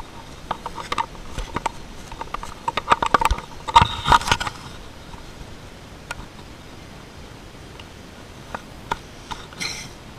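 Handling noise from a camera carried while walking: short clicks, knocks and rubbing, busiest in the first half. It then eases into a quieter steady background with a few single clicks and a brief hiss near the end.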